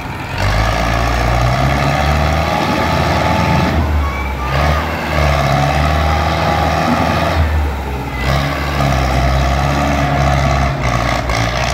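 Belarus tractor's diesel engine revving hard under load as it strains to pull free of the mud with an overloaded trolley. It picks up about half a second in and eases off briefly twice before revving up again.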